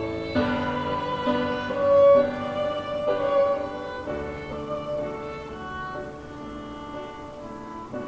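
Instrumental background music with a bowed violin melody over strings, the notes held and changing every half second or so, getting quieter through the second half.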